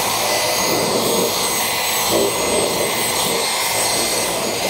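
Cordless drill spinning a wire cup brush against galvanized sheet-metal pipe flashing, scuffing the shiny surface off so the primer will bond. A steady grinding hiss with a steady high whine over it.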